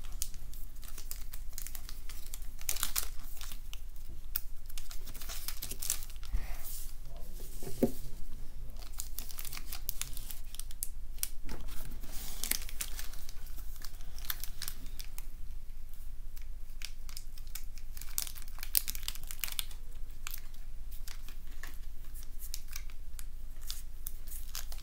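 Foil wrapper of a Pokémon Shining Fates booster pack crinkling and tearing as the pack is opened by hand, in irregular crackles throughout.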